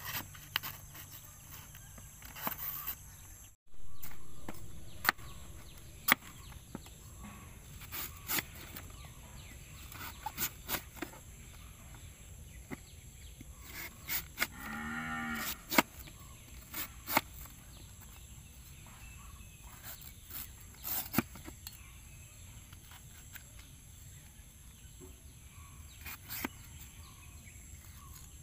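Kitchen knife cutting and peeling banana stem on a woven bamboo tray: scattered crisp cuts and taps. A cow moos once about halfway through.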